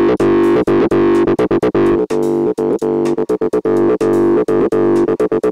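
Acid bassline from a Vital software-synth patch imitating a Roland TB-303: two square-wave oscillators an octave apart through a resonant 24 dB ladder filter, playing a fast sequence of short notes with brief gaps between them. The octave layering brings it closer to the classic 303 acid sound, but not yet like the record.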